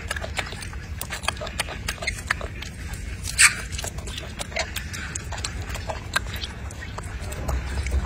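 A golden snub-nosed monkey chewing fruit: quick, irregular wet clicks and smacks, with one louder sharp sound about three and a half seconds in.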